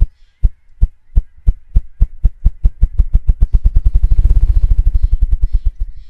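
Male ruffed grouse drumming: deep thumps from its beating wings, slow at first and speeding up into a rapid whir, which stops near the end. It is the male's courtship display to attract females, the sound made by air rushing beneath the wings.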